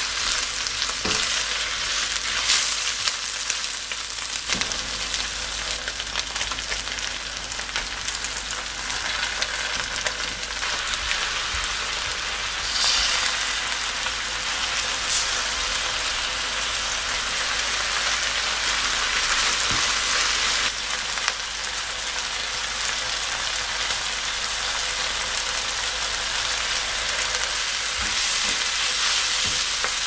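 Pork, green onion and onion sizzling steadily as they are stir-fried in a nonstick frying pan, with a spatula scraping and knocking against the pan now and then.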